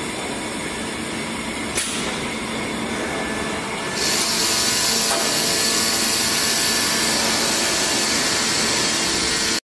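Steady running noise of rubber injection press machinery, with a single click about two seconds in. About four seconds in the noise steps up and turns louder and hissier.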